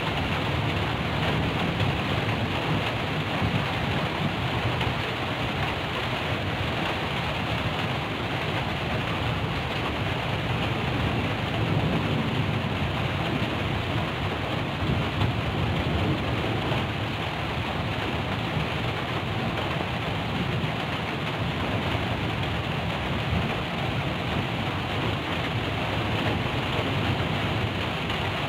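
Heavy rain falling steadily on a tin roof, with a low rumble of thunder underneath that swells a little about midway.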